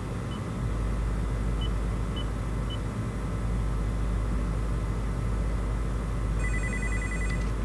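A steady low hum runs throughout, with four faint short high beeps in the first three seconds. Near the end a telephone rings once with an electronic trill lasting about a second.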